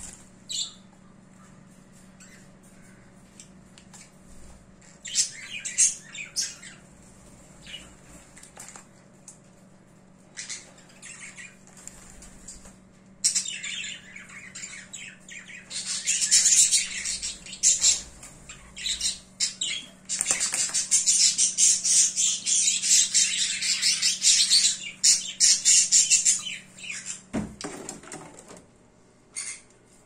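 A small conure bathing in a shallow dish of water, beating its wet wings and splashing. Short flurries at first, then a long spell of flapping and splashing from about halfway through until near the end.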